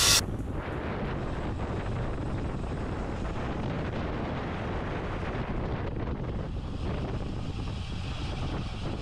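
Steady wind rush on the microphone of a camera riding on a road bicycle at speed.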